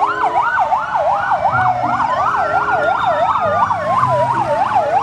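Fire engine sirens: one in a fast yelp, rising and falling about three times a second, with a second siren slowly rising and then falling beneath it.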